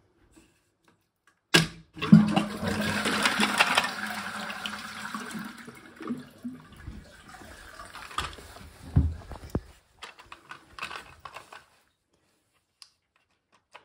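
Roca toilet cistern flushing: a clack about a second and a half in, then water rushing out of the cistern into the pan, loudest for a couple of seconds and tailing off over several more. Scattered plastic clicks and knocks follow as the flush valve is handled.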